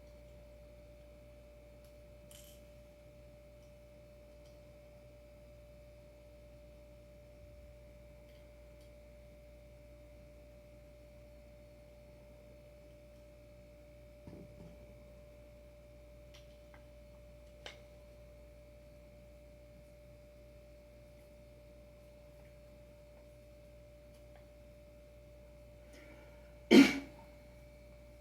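Skateboard hardware being handled: a few light clicks, then one loud knock near the end, over a faint steady high-pitched whine.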